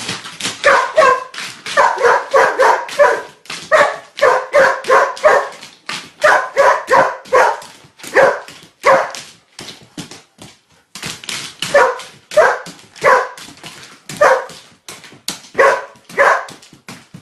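A dog barking over and over, about two or three barks a second in runs with short pauses.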